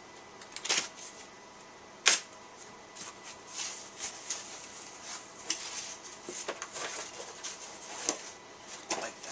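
A package being opened by hand: two sharp snaps, then a run of irregular crackling and rustling from plastic wrap and packing tape.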